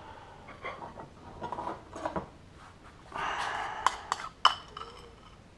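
A table knife scraping and stirring tartare sauce in a bowl, with light clatter of kitchenware, then a few sharp clinks of the blade against the bowl a little past the middle.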